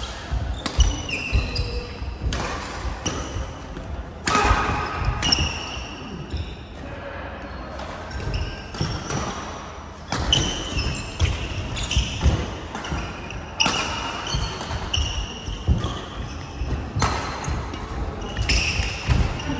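Doubles badminton rally: racket strings striking the shuttlecock again and again, mixed with short squeaks of shoes on the court floor, in a large hall.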